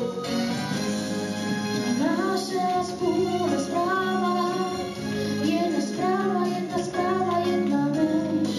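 A child singing a song solo into a microphone over instrumental accompaniment.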